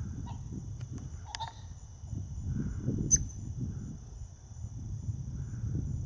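Penned pheasants calling: a few short calls over a steady high insect trill.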